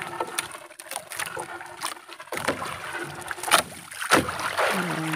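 Wet monofilament gill net being hauled by hand into an outrigger fishing boat: irregular knocks, rustles and water splashes as the net comes over the side.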